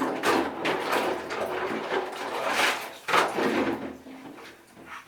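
Many loose Lego pieces clattering and rattling together as they are handled in a container, a dense run of small plastic clicks that eases off near the end.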